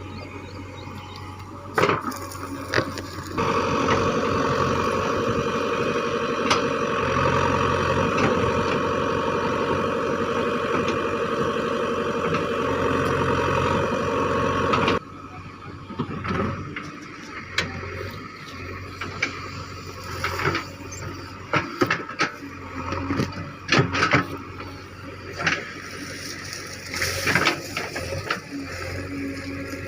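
JCB 3DX backhoe loader's diesel engine running hard under load with a steady whine, then cut off suddenly about halfway through. After it come irregular sharp knocks and cracks.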